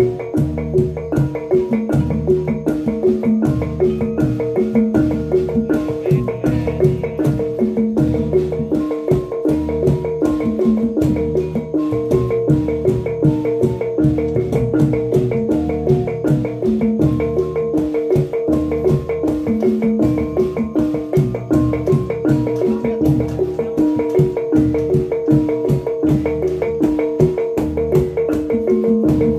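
Live Javanese gamelan playing reog/jathilan dance accompaniment: bronze kettle gongs (bonang) beaten in a fast, steady repeating pattern over a held gong tone, with low thuds keeping a regular beat.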